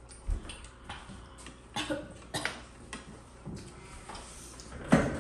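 Kitchen utensils and dishes knocking and clinking a few separate times, the loudest knock just before the end.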